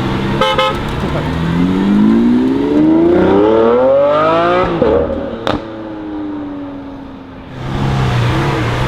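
Lamborghini Aventador SVJ's 6.5-litre V12 accelerating, its revs climbing steadily for about three seconds before cutting off abruptly, followed about a second later by a single sharp crack, then the engine note falling away. A steady low engine hum sits under the start and returns near the end.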